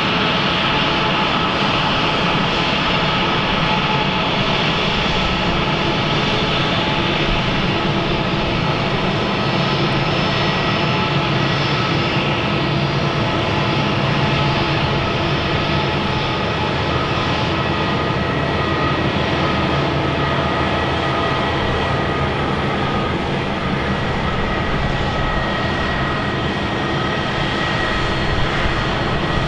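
Airbus A319-132's IAE V2500 jet engines running steadily: a loud, even roar with several steady whining tones over it.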